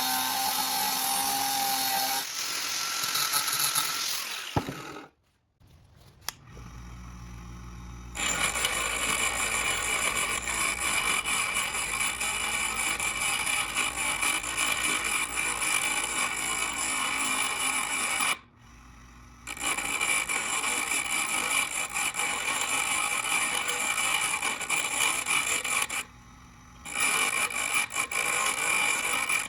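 Power tool cutting and grinding a steel bolt. A steady whine changes about two seconds in and stops about five seconds in. After a short pause with a low hum, steady grinding runs on, broken twice by brief pauses.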